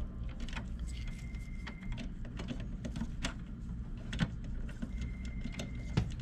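Small clicks and taps of plastic parts being handled as new pickup and separation rollers are fitted into an HP LaserJet Pro 200 color printer's paper-feed area, over a steady low hum.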